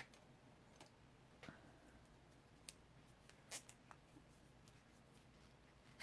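Near silence with a few faint, sharp clicks and taps from craft supplies being handled on a table, the clearest about three and a half seconds in.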